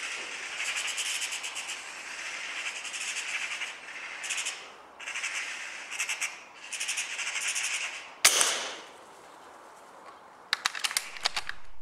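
Eurasian magpie chattering in repeated rapid rattling bursts, then a single sharp rifle shot about eight seconds in, followed near the end by a quick run of clicks.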